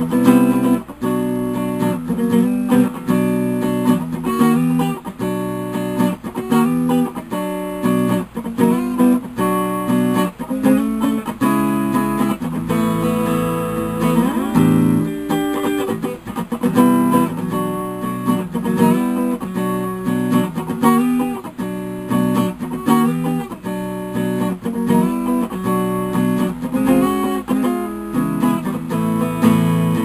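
Jay Turner Stratocaster-style electric guitar played with a clean tone through a bass amplifier: continuous picked single-note lines and chords, with string bends around the middle.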